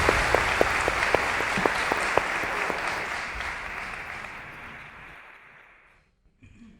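Audience applauding with a dense patter of claps that fades steadily away over about six seconds to silence.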